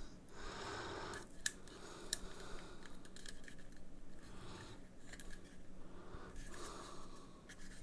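Faint handling noise as a plastic wireless microphone receiver is turned over in the hands, with a few light clicks and taps.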